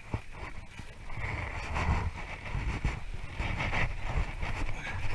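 Wind buffeting the microphone in uneven gusts, with faint knocks and rustling from handling on a boat deck.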